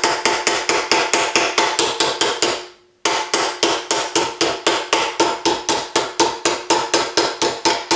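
Rapid mallet blows, about four to five a second, on a reticulated-silver cuff blank held over a steel anticlastic stake clamped in a vise, each blow with a short metallic ring. There is a brief pause about three seconds in, then the blows carry on. This is the cuff's edge being forged into the anticlastic saddle curve.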